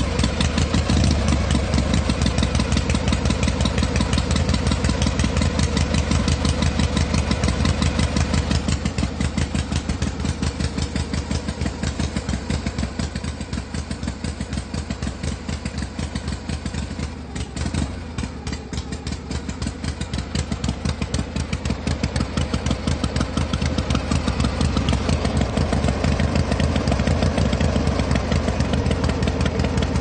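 Vehicle engine running with a fast, even firing pulse. It grows quieter a little under halfway through, falters briefly past the middle, then picks up again and holds steady toward the end.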